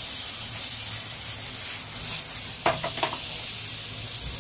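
Butter sizzling steadily in a nonstick pan around a frying mutton paratha, with a few short clicks about two and a half seconds in.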